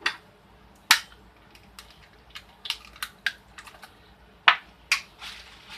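Eggs being cracked with the side of a fork over a bowl: a few sharp, separate clicks and taps of the metal fork on the shells, the loudest about a second in and a quick pair just before five seconds.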